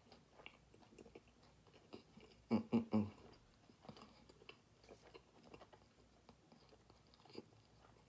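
A person chewing a mouthful of fried chicken sandwich with lips closed: soft, moist chewing clicks. A louder cluster of three short sounds comes about two and a half seconds in.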